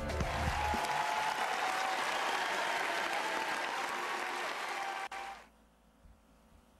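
Applause from an audience, stopping suddenly about five and a half seconds in, leaving near silence.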